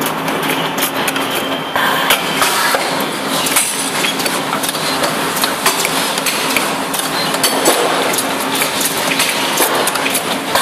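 Pave Huron 8 CNC wire-bending machine working 8 mm galvanised wire: its bending head swings and turns, with repeated clanks and knocks over a steady machine hum.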